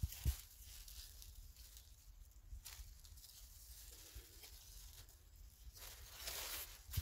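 Footsteps and rustling in dry leaf litter and low undergrowth, with a low thump just after the start; the rustling grows louder near the end.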